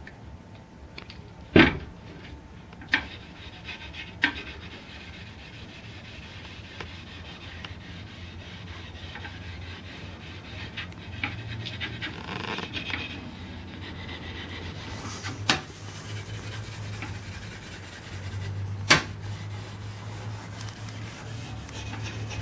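Hand rubbing mineral oil into a flat wooden fish carving, a soft rubbing on the wood over a low steady hum. Five sharp knocks are scattered through, the loudest about a second and a half in.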